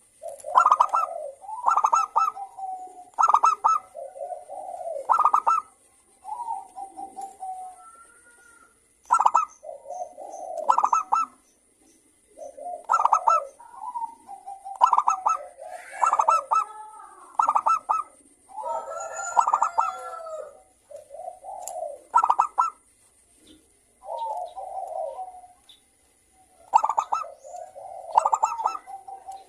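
Zebra doves (local perkutut) singing: short phrases of rapid staccato coos repeated every second or two, overlapping in places, a lively 'gacor' song used as a lure to stimulate another perkutut to call.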